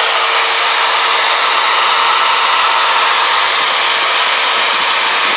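CNC router spindle running steadily while milling, a loud even rush of noise with a thin high whine held throughout.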